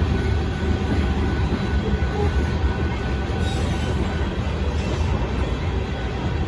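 Freight train rolling past: a Union Pacific sand train's cars running by with a steady, heavy rumble of wheels on rail.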